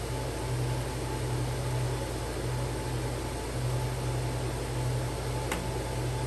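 Laser cutting machine running a cut: a steady fan-like hiss of air with a low hum underneath that drops away briefly a few times.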